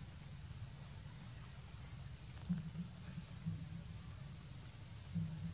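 Insects in the trees keeping up a steady, high-pitched drone, with a faint low rumble underneath.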